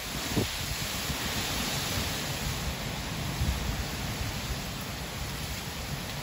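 Hurricane wind and driving rain: a steady hiss of heavy rain with gusts of wind rumbling on the microphone.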